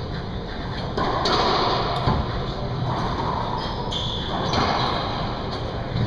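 Racquetball rally: several sharp pops of the ball off racquets and the court walls, echoing in the enclosed court.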